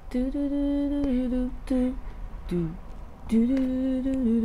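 A woman humming a short tune in two phrases. Each phrase is a long held note that steps down slightly, then a short note: the melody of a YouTuber's intro.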